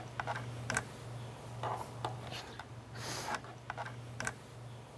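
A woman crying quietly, with breathy sobbing gasps and small sniffs and clicks, the strongest about three seconds in. A steady low electrical hum sits underneath.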